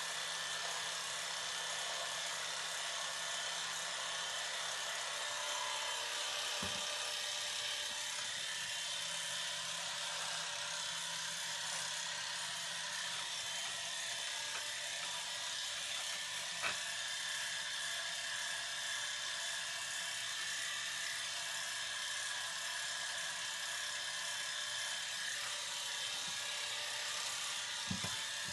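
Electric hair clippers buzzing steadily while trimming hair, with a few brief clicks, one about a third of the way in, one past halfway and one near the end.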